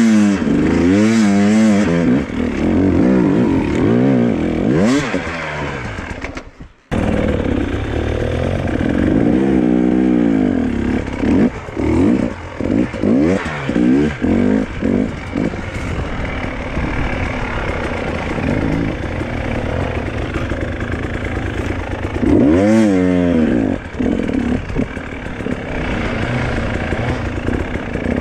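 Enduro dirt bike engines revving up and down over and over as the bikes pick their way over rough ground. The sound drops out briefly about seven seconds in.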